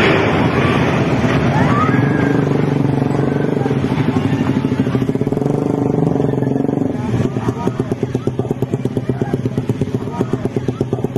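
Motorcycle engines running close by. A loud rushing noise at the start fades over the first couple of seconds. From about seven seconds in, one engine settles into a fast, even putter of about four beats a second.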